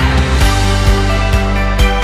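Background music with a steady beat: a low drum strikes about twice a second under sustained chords.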